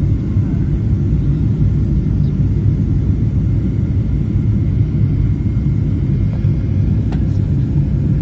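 Airliner cabin noise in flight: a steady, loud low rumble of the engines and rushing air, with a faint steady high whine over it.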